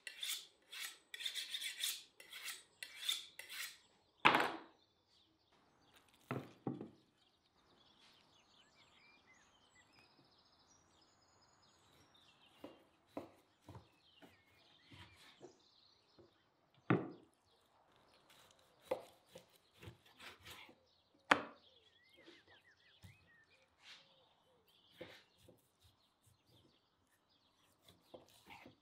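A large kitchen knife sharpened against a steel with a quick run of scraping strokes, then a loud knock about four seconds in. After that the knife slices through a big piece of raw beef on a wooden cutting board, with a few sharp knocks of the blade hitting the board and faint bird chirps behind.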